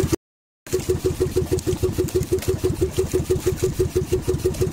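A boat engine running steadily at a slow, even beat of about four to five pulses a second. The sound cuts out completely for about half a second near the start, then resumes unchanged.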